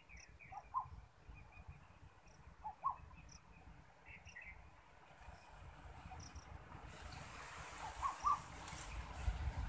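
A red plastic jerry can held under in a muddy pool to fill, giving a few faint glugs and gurgles as water runs in. Birds chirp and insects tick in the background, and the water noise grows louder near the end.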